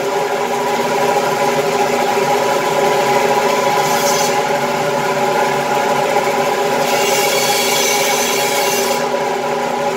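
Meat band saw running with a steady motor hum as its blade cuts a bone-in beef rib into steaks, with a higher hissing cut about four seconds in and again from about seven to nine seconds in.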